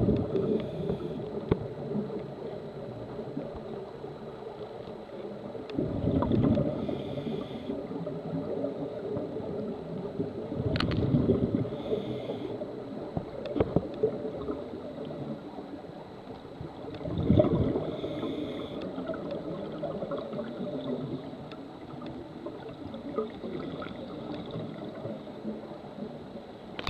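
Scuba breathing heard underwater: regulator exhalations release a gush of gurgling bubbles about every five to six seconds, each followed by the short hiss of an inhalation through the regulator. A single sharp click sounds near the middle.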